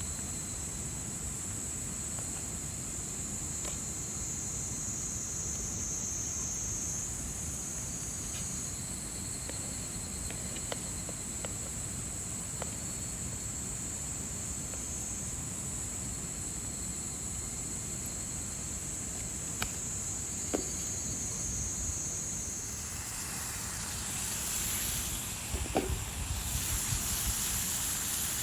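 Insects singing in a steady, high-pitched drone over a low background rumble. About three quarters of the way through a broad hiss sets in, with a few light knocks.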